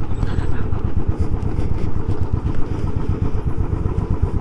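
Motorcycle engine running steadily at low revs, a fast even stream of firing pulses.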